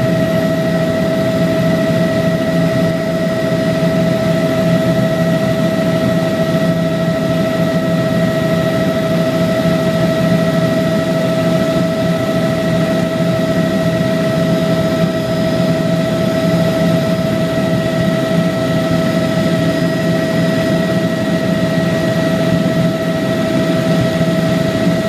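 Helicopter in flight, heard from inside the cabin: a steady, loud engine and rotor drone with a constant high whine at a few set pitches.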